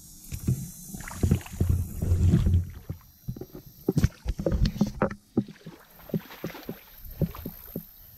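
Feet wading through shin-deep water on a flooded trail: irregular sloshing and splashing strokes, loudest about two seconds in, then settling into separate splashy steps about two a second.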